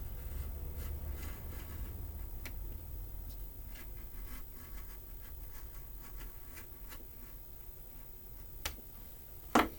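A knife blade scoring around the outline of a homemade engine gasket: faint, scattered scratching and light ticks, with a sharp click near the end.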